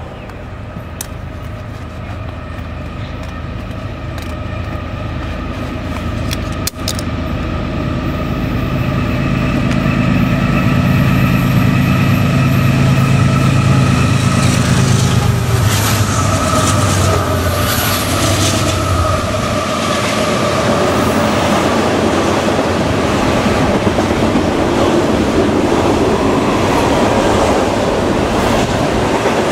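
Union Pacific double-stack container train passing close by. The diesel locomotives' engines drone and grow louder as they approach, loudest about halfway through. Then the container cars roll past with a steady wheel-on-rail rumble and repeated clicking over the rail joints.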